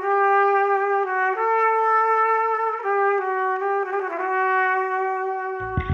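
Music: a slow solo melody of long held notes on a single instrument, changing note about every second and a half, with a full band and bass coming in right at the end.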